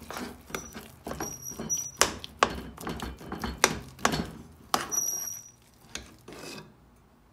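Steel ladle scraping and knocking against the sides and bottom of an aluminium pressure cooker as it mashes soft cooked rice and moong dal, about two strokes a second, with two short high squeals of metal on metal. The strokes stop about six and a half seconds in.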